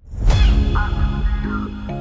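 Electronic background music that comes in suddenly with a deep bass swell, then carries on with held synth chords and short higher notes.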